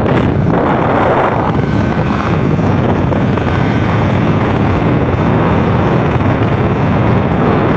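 Steady wind buffeting the microphone over the road and engine rumble of vehicles travelling at speed.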